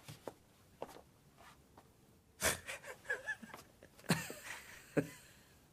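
Short gasps and strained breaths from a person, with a few light clicks near the start and two sharper breaths near the end.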